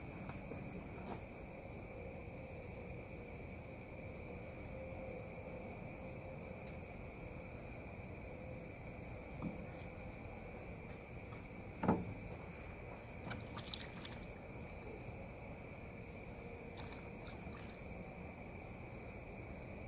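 A steady chorus of night insects, several constant high-pitched trills going without a break. A single sharp knock sounds about twelve seconds in, followed by a few lighter clicks.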